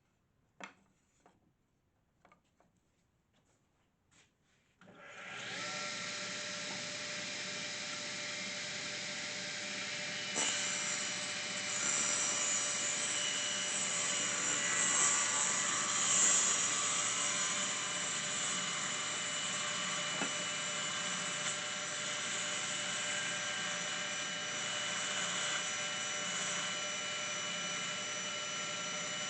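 A few light clicks, then a restored 1940s Darra James table saw starts about five seconds in and runs steadily with a whine of several tones. From about ten seconds it gets somewhat louder, as if it is making a test cut in wood.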